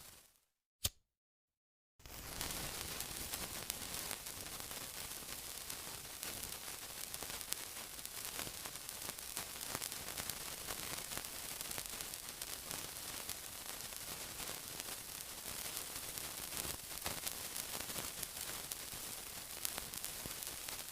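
Sizzling: a steady hiss thick with tiny crackles and pops. It fades out at the start, leaving a short silent gap with a single sharp click, and comes back in about two seconds in.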